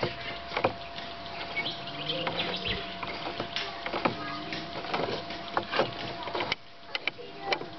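Irregular metallic clicks and knocks as the magneto flywheel of a Villiers 11C two-stroke engine is turned and worked off its shaft by hand.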